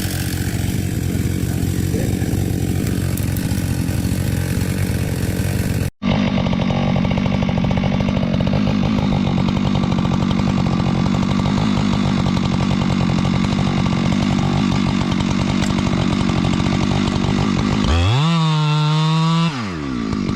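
Chainsaw engine running hard, cutting into wood, with an abrupt break about six seconds in where one shot gives way to another. Near the end the pitch briefly sweeps up and back down.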